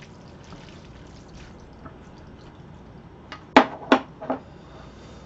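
Close-miked eating sounds of black bean noodles (jjajangmyeon): faint chewing, then three sharp clicks in quick succession about three and a half seconds in.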